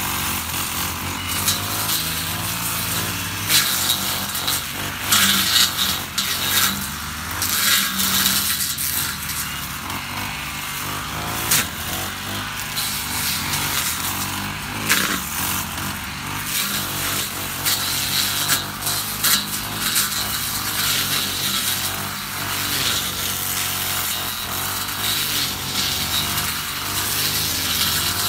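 Honda UMK450T brush cutter's GX50 four-stroke engine running at cutting speed while its blade slashes through tall grass and weeds. Brief irregular cracks and swishes of stems being struck sound over the steady engine note.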